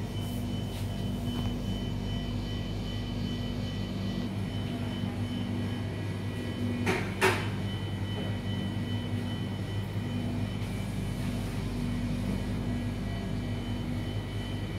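Steady electrical hum of kitchen appliances, with a few faint steady high tones over it, and a brief double knock about seven seconds in.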